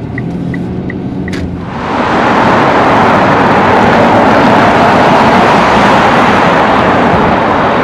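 A low car-cabin hum with faint regular ticking, then, about two seconds in, loud steady rushing noise of a downtown city street takes over.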